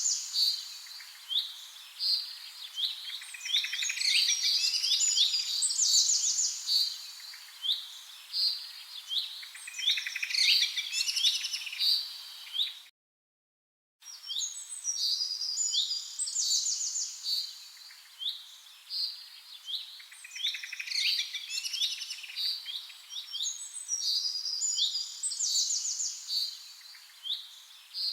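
Several small songbirds chirping and singing in quick, overlapping high calls and short trills. About halfway through, the sound drops out completely for about a second, then the chirping resumes.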